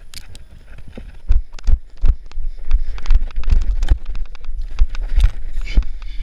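Repeated dull thumps and sharp knocks of a person climbing a wooden wall obstacle: hands and shoes striking and scraping the wooden planks. The thumps grow heavier and more frequent from about a second in.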